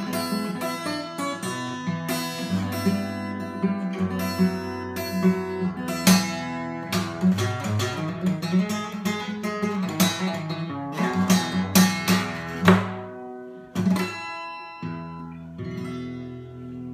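Acoustic guitar with a capo, fingerpicked blues: quick plucked treble notes over a steady thumbed bass, ending about fifteen seconds in on a chord that rings out.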